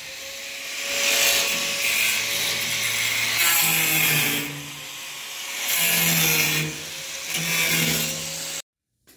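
A hand-held power tool running in short bursts on sheet metal, about five bursts of roughly a second each. The sound cuts off abruptly near the end.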